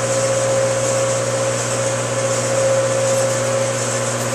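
Small metal lathe running with its chuck spinning: a steady motor hum with a constant higher whine over it.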